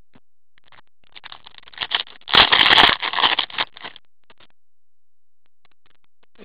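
Foil wrapper of a Panini Prizm hockey card pack being torn open and crinkled by gloved hands. The crinkling starts about a second in, is loudest for about half a second near the middle, and stops about four seconds in.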